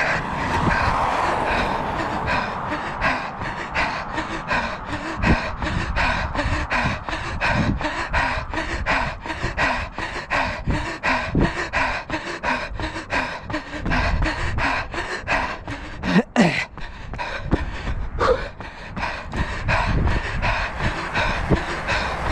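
A runner's footsteps on an asphalt path at a fast, even cadence of about three strides a second, with heavy panting breaths from hard effort in a tempo run. A brief louder noise comes about sixteen seconds in.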